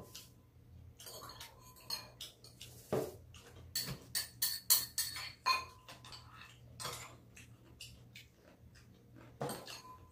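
Metal spoons clinking and scraping against bowls and dishes while eating: scattered clinks at first, a quick run of them in the middle, then a few single ones.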